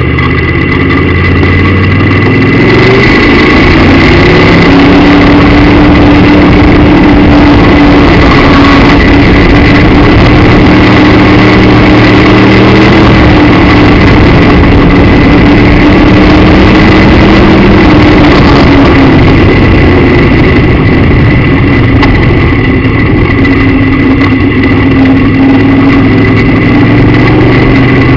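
Very loud V8 engine of a Midwest Modified dirt-track race car, heard from inside the car at racing speed. Its pitch climbs over the first few seconds, then holds high, easing off briefly a few times as the car goes around the track. A steady high whine runs along with it.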